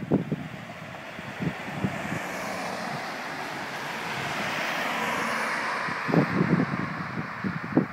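A vehicle passes, its noise swelling over a couple of seconds and then fading. Wind buffets the microphone in gusts near the start and again after the vehicle has gone.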